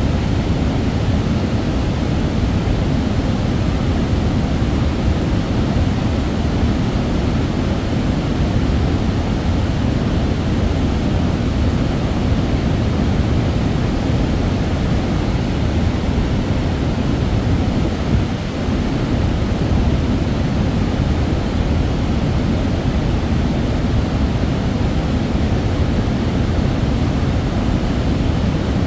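Water falling from the Cleveland Dam into the rocky canyon pool below: a steady, deep rush that never lets up.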